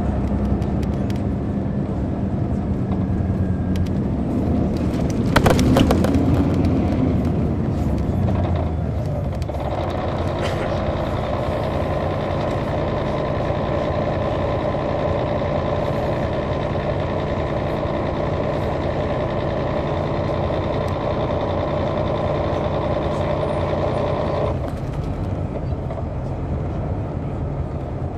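Detroit Diesel Series 60 diesel engine of a 2002 MCI D4000 coach, heard from the back of the cabin. About five seconds in it rises and falls in pitch, with a brief rattle. It then settles into a steady run with stronger upper tones, which eases off a few seconds before the end.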